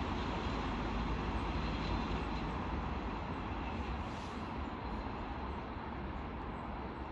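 Intermodal freight train's container wagons rolling past on the rails, a steady heavy rumble that eases a little toward the end.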